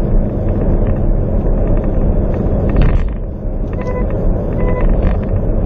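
Loud, steady road and wind rumble from a car driving along a road. About four seconds in, two short electronic beeps sound: the car's lane departure warning as it drifts over the lane marking.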